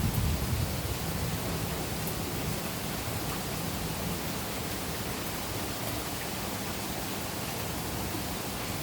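Steady hiss of rain falling during a thunderstorm, with a low rumble in the first second that fades away.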